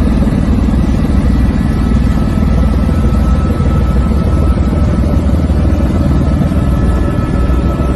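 A loud, steady low rumble with a faint steady high whine over it.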